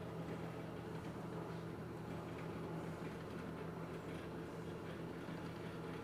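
1934 Maytag Model 110 wringer washer running, a quiet, steady hum from its electric motor and gearing as a folded towel is fed through the turning wringer rolls.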